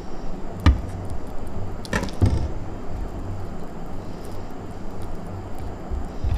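Knife chopping on a wooden cutting board: one sharp knock about a second in, then a short cluster of strokes around two seconds in, over a steady low rumble.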